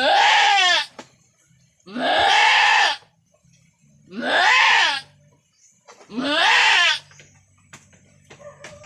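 A goat doe in a hard labour bleats loudly and harshly, four long cries of about a second each, one every two seconds or so.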